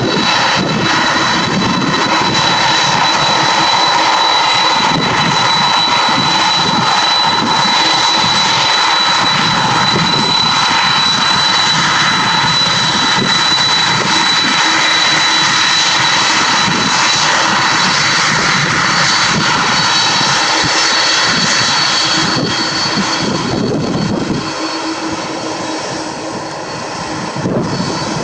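Jet airliner engines at takeoff power: a loud, steady roar with a thin high whine over it, easing off briefly near the end before swelling again.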